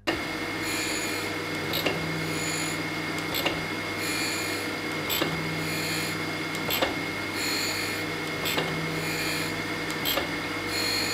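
Jones and Shipman 540 surface grinder grinding a thin steel vise jaw under flood coolant: a steady motor and wheel hum, with the rasp of the wheel cutting swelling and fading in a regular cycle as the table carries the jaw back and forth, and a short click about every one and a half seconds.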